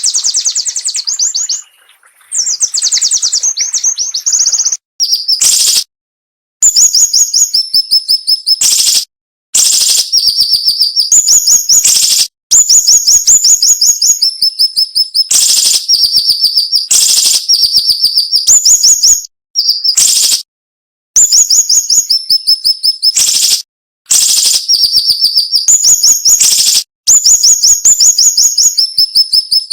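Siri-siri bird singing sharp, tightly packed trains of rapid high notes that step down in pitch. The phrases last a couple of seconds each and are separated by short silent pauses.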